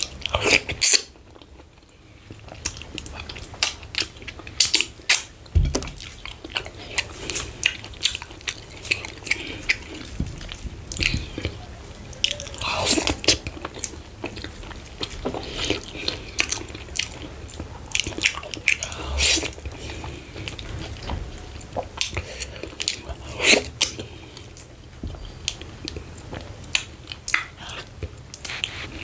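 Close-miked eating by hand of fufu with ogbono soup: chewing and wet smacking mouth sounds, with many irregular sharp clicks.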